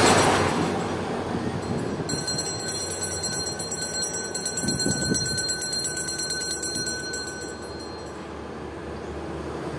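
A high, rapidly trilling ring, like a small bell shaken fast, starts about two seconds in and stops near eight seconds, over steady outdoor background noise that fades.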